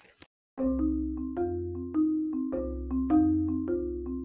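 Background music: a melody of sharply struck, quickly fading notes over a deep bass line, coming in suddenly about half a second in.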